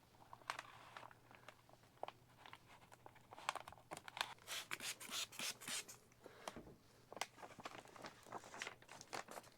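Sheet of vinyl wrap film being handled and peeled, giving irregular crinkling and rustling with small clicks, busiest around the middle.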